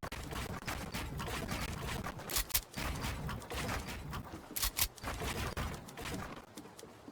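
Computer parts being handled: a run of irregular clicks, taps and light plastic clatter, with sharper bunches of clicks about two and a half seconds in and again near five seconds.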